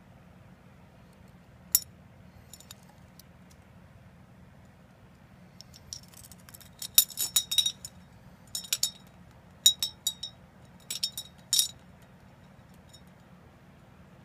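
Metal blades of large spinner fishing lures clinking and jingling against each other as they are handled: one sharp clink near two seconds in, then bursts of clinks from about six to twelve seconds.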